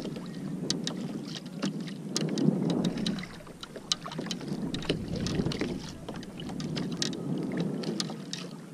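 Water lapping and sloshing against a plastic kayak hull in a light chop, swelling and easing, with wind on the microphone and many small scattered clicks.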